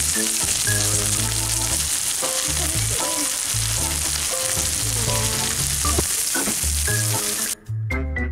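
Hamburger steak patties, topped with onions, mushrooms and cheese, sizzling steadily on a Blackstone flat-top griddle, with background music under it. The sizzle cuts off suddenly near the end, leaving only the music.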